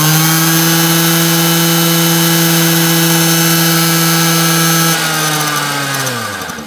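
Scooter engine revved and held at high revs on its stand, a loud, steady high-pitched drone. About five seconds in the throttle is let off and the pitch falls away toward idle.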